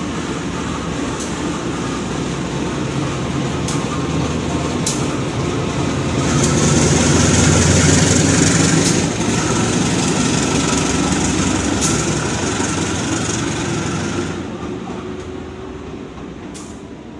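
CC 201 diesel-electric locomotive running light past at low speed: a steady diesel drone that swells to its loudest as the locomotive passes close, about seven to nine seconds in, then fades as it moves away. A few sharp clicks are scattered through the pass.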